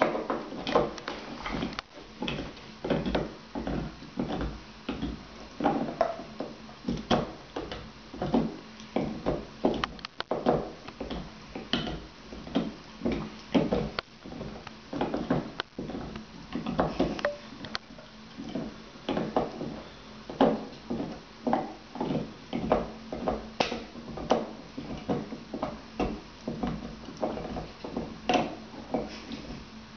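Golden retriever gnawing a hard yellow ring-shaped chew toy: a steady run of irregular clicking, crunching bites, about two a second.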